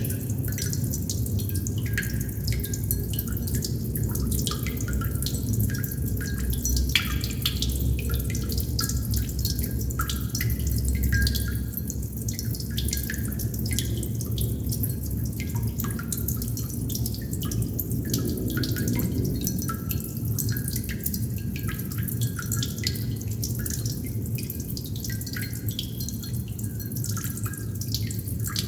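Water droplets dripping continuously in an irregular patter of many small plinks, some with a short pitched ring. A steady low rumble runs underneath.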